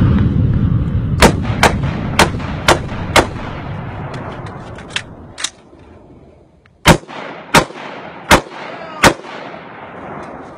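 Gunshots from a firearm: five shots about two a second, two faint pops, then, after a short pause, four more loud shots a little under a second apart. A deep rumble fades out under the first shots.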